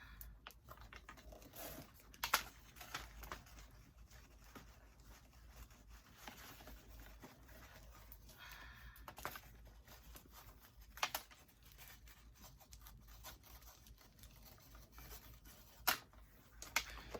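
A sneaker and its laces being handled as the laces are threaded through the eyelets: faint rustling with a few sharp clicks and taps scattered through, the loudest about two seconds in.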